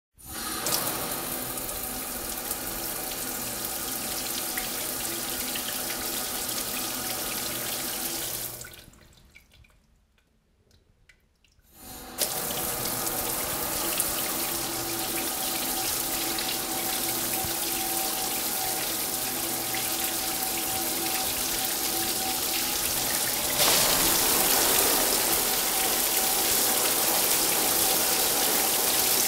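Water running from a shower tap in a steady stream. The flow dies away for a few seconds about a third of the way through, then starts again abruptly and grows louder about three-quarters of the way through.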